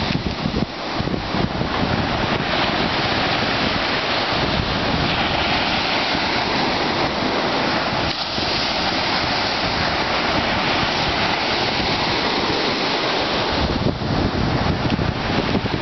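Gulf surf breaking and washing up a sandy beach in a steady rush. Wind buffets the microphone with low rumbling gusts about a second in and again near the end.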